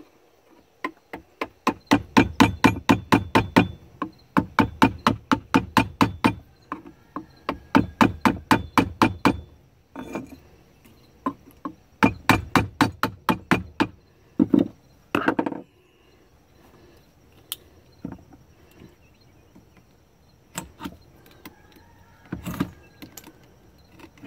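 Hammer driving a wood chisel into a wooden axe handle clamped in a vise, shaving back the wood. The strikes come in quick runs of about five a second with short pauses between, then as scattered single taps in the second half.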